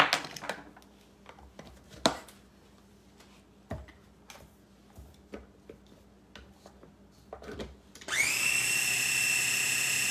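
Clinks and clicks of a spoon and of the lid and motor head being fitted onto a small electric food chopper, then about eight seconds in the chopper's motor starts and runs at a steady high whine, its bowl packed full.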